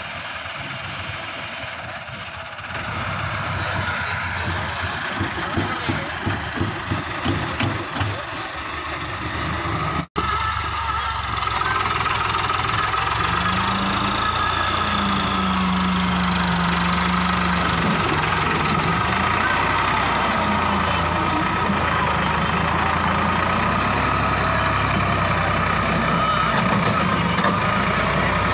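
Massey Ferguson 375 diesel tractor engines working under load. First the engine pulses about twice a second as the front loader works. After a brief break comes steadier, louder running as a tractor hauls a heavily loaded sand trolley, straining hard enough to lift its front wheels.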